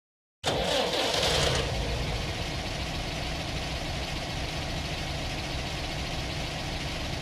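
Car engine starting: it comes in suddenly about half a second in, loudest for the first second as it catches, then settles into a steady idle that fades out at the end.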